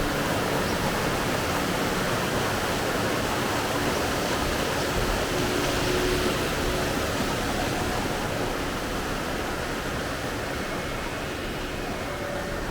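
Steady rushing of a mountain stream's flowing water, an even hiss without breaks.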